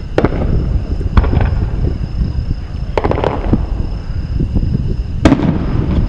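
Aerial firework shells bursting: four sharp bangs spread over the few seconds, each with an echoing tail, the last near the end the sharpest, over a steady low rumble.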